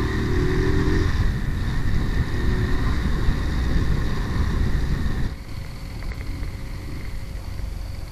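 Kawasaki Rouser 180 motorcycle running on the move, its engine under a heavy low rumble of wind on the microphone. About five seconds in, the whole sound gets quieter.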